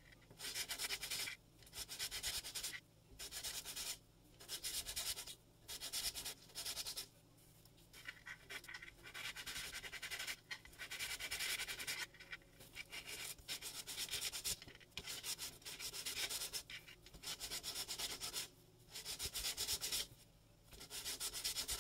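Sandpaper rubbing along the edges of a thin plastic strip cut from a document folder, sanding it smooth. It comes as a dozen or so back-and-forth strokes of about a second each, with brief pauses between them.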